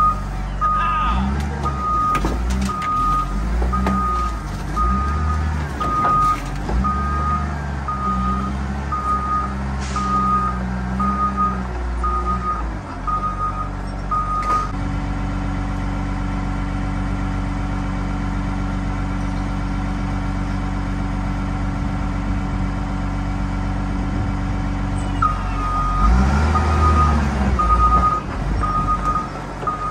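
Heavy equipment machine running with its backup alarm beeping about once a second while it reverses. The beeping stops for about ten seconds in the middle, leaving the engine running steadily, then starts again near the end as the engine revs up.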